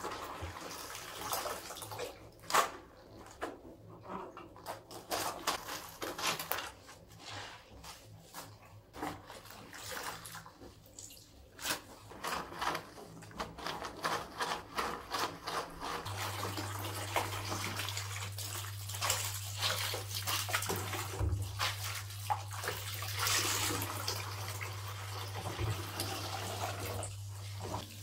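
Cloth towels being hand-washed in soapy water: repeated splashing, squelching and scrubbing of wet fabric against the metal drainboard. About halfway through, a tap opens and water runs steadily into a plastic basin in the sink.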